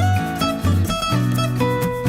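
Background music led by acoustic guitar, with a steady beat and bass.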